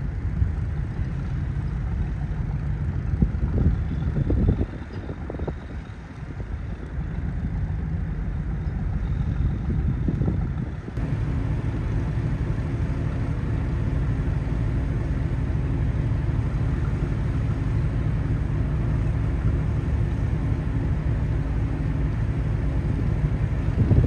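Boat engine running under wind noise on the microphone. About 11 seconds in it cuts abruptly to a steadier engine drone with a low hum.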